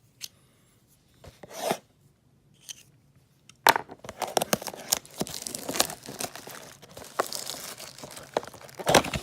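A sealed trading-card box being torn open, with its packaging tearing and crinkling. A few light rustles come first, then steady tearing and crackling from a little under four seconds in.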